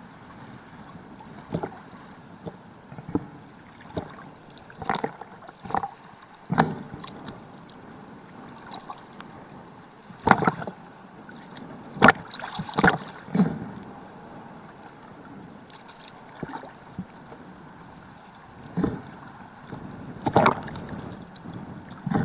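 Irregular splashes, gurgles and knocks of water picked up by a spearfisher's camera, over a steady hiss.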